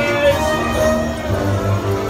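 Holiday parade music playing over loudspeakers, with a pulsing bass beat coming in partway through.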